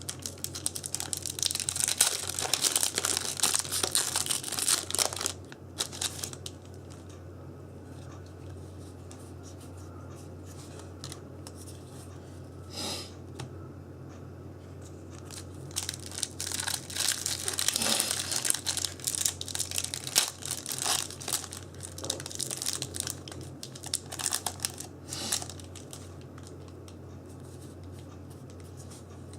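Foil trading-card booster pack wrappers being torn open and crinkled, in two bouts: one at the start lasting about six seconds, and another from about the middle until a few seconds before the end, with a quiet pause between. The packs' foil keeps sticking instead of opening cleanly.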